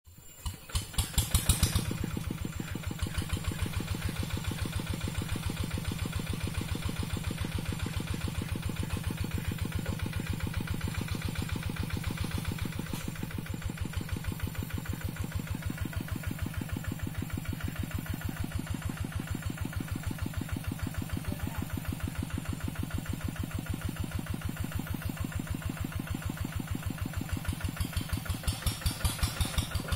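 Single-cylinder diesel engine of a two-wheel hand tractor catching about a second in, then idling with a steady, even thud of firing strokes. It gets louder near the end.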